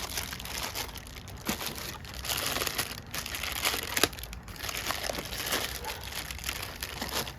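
Plastic packaging crinkling and rustling as the smart deadbolt lock is unwrapped by hand, with a few light knocks.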